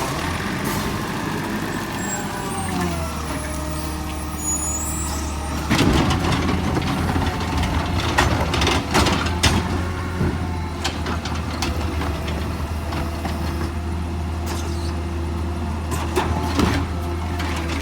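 Garbage truck's diesel engine running steadily, with a whine falling in pitch in the first few seconds. About six seconds in comes a loud burst of hiss, then a few seconds of knocks and clatter.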